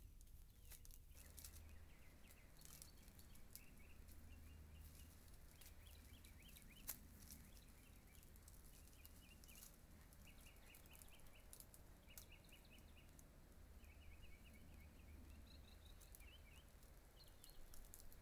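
Faint bird chirping in short trilled phrases, repeated again and again, over a steady low hum with scattered faint clicks.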